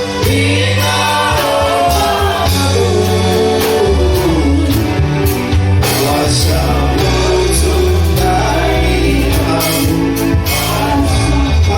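Gospel worship song: voices singing over a heavy bass line and a steady drum beat.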